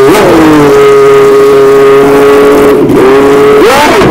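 Peugeot V10 of a three-seater Formula 1 car running loud at a steady high idle, dipping briefly twice and then revving up near the end. The car is being pushed off because the engine's huge torque makes it hard to pull away without stalling.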